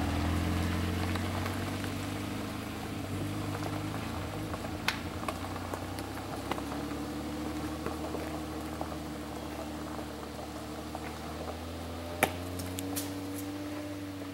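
Toyota Land Cruiser 80 series' 4.5-litre straight-six engine running at low speed as the truck crawls away on a dirt trail, a steady low hum that slowly fades. A few sharp pops of gravel crack under the tyres, about five seconds in and again near the end.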